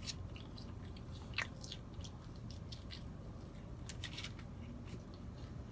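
Faint close-up chewing with soft wet mouth clicks, one slightly louder click about a second and a half in.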